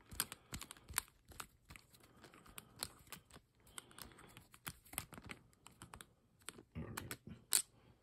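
A screwdriver turning a small retaining screw into a steel padlock body: a run of light metal clicks and scrapes as the screw is driven in.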